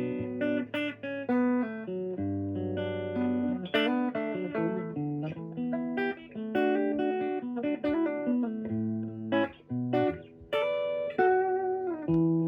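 1960 Fender Jazzmaster on its bridge pickup, played clean through a 1959 Fender Champ amp: a passage of chords and picked notes, with changes about every second. The tone is a little buzzy from the guitar's low frets and nut.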